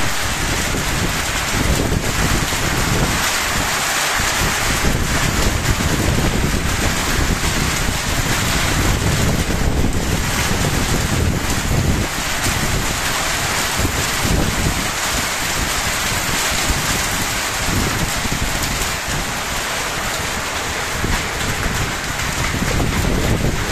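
Hail and rain falling steadily on the ground in a storm, an even hiss of pattering, with gusty wind buffeting the microphone that comes and goes.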